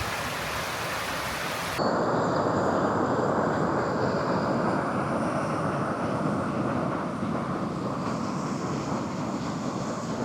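Rushing water: a creek's even hiss, then, after a cut about two seconds in, the louder and deeper rush of a small waterfall pouring down, easing slightly near the end.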